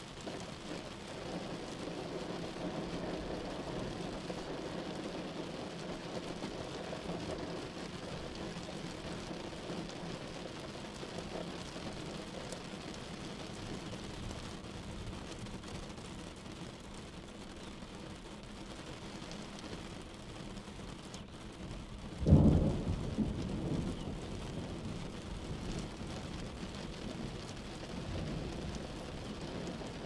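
Sleep-sound track of steady noise with no tone in it, heaviest in the low and middle range, broken about 22 seconds in by one sudden loud, deep bang that trails off over a couple of seconds.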